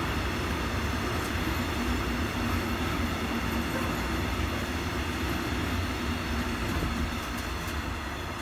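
Freight train of covered hopper wagons rolling past: a steady rumble and clatter of steel wheels on rail, easing off slightly near the end.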